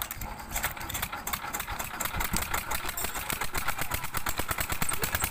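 Single-cylinder 'Peter' diesel engine being hand-cranked and catching: its firing beats begin a moment in, then speed up into a fast, steady chugging run.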